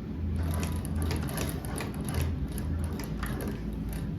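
Hand-cranked cobbler's leather sewing machine being turned over, its mechanism clicking and ratcheting at roughly two clicks a second. It is being run backwards to try for a back stitch.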